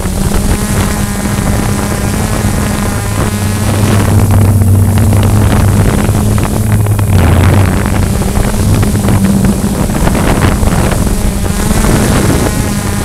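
Walkera QR X350 quadcopter's motors and propellers humming steadily, heard through its own onboard camera microphone, with wind rushing over the microphone. The hum grows a little louder a few seconds in, then eases.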